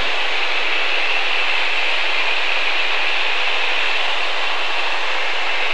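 Steady cabin noise of a single-engine Grumman light aircraft in level cruise: engine, propeller and airflow heard as an even, unchanging hiss.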